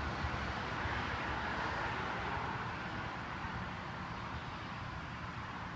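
Steady outdoor background noise: an even hiss with a low hum underneath, no distinct events.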